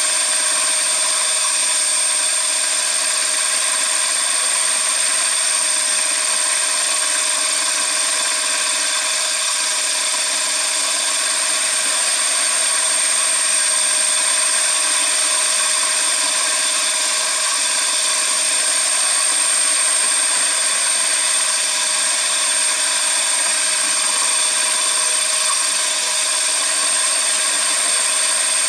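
CNC machine running steadily: a constant high whine over an even mechanical noise, with no pauses or changes.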